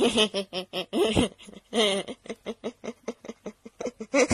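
Laughter: a long string of quick, short laughs, several a second, with a few longer laughs at the start.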